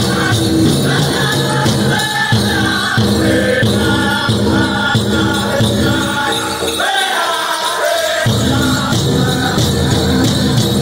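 Pow-wow drum group singing over a big drum beat, with the chicken dancers' leg bells jingling. The drum drops out for about a second around two-thirds of the way through while the singing carries on.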